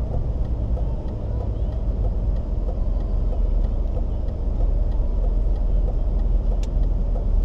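Low, steady rumble of a BMW X5 3.0d, its six-cylinder diesel engine and tyres heard from inside the cabin as the car rolls slowly, growing a little louder about halfway through.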